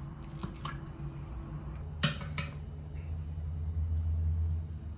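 Metal fork clicking against a ceramic plate: a few light clicks early on, then a sharper click about two seconds in with another just after, over a steady low hum.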